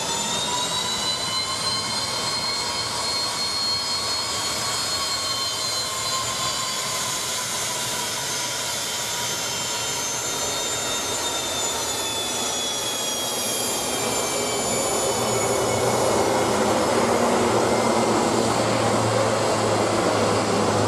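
Bombardier Dash 8 Q400 turboprop engines at take-off power. A high turbine whine rises over the first few seconds and then slowly drops, and about two-thirds of the way in a broader propeller roar with a low hum grows louder as the aircraft accelerates down the runway and lifts off.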